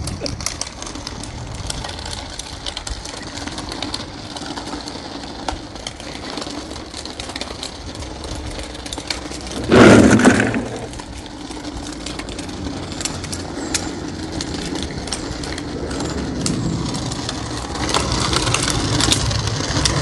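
Cordless stick vacuum cleaner's floor head dragged and rolled over rough tarmac, scraping and rattling with many small clicks. One brief loud sound lasts about a second near the middle.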